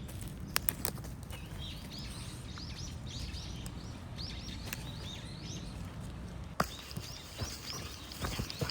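Repeated short, high chirps from an animal, several a second, over a low steady background rumble, with a few sharp taps in the first second.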